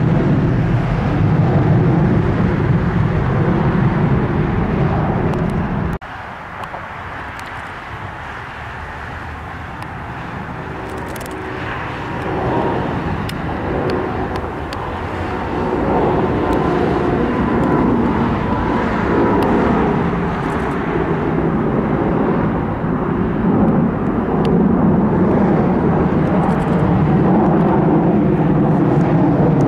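Jet aircraft engine noise, loud and steady, cutting off abruptly about six seconds in to a quieter stretch. It then builds back up over the following several seconds and holds loud to the end.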